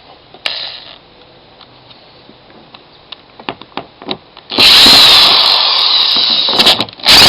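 Light handling clicks, then about four and a half seconds in a power drill runs, backing out the screws that hold the kayak's carry handle. It runs for about two seconds, stops briefly, and starts again near the end.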